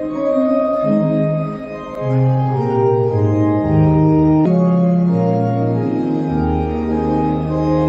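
Organ playing slow, sustained chords that change about every second, as in a hymn.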